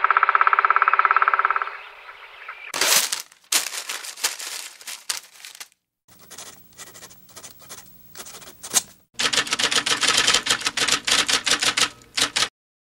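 A buzzing tone for about two seconds, then bursts of rapid clicking and rattling, the last and loudest a dense run of clicks about three seconds long that stops shortly before the end.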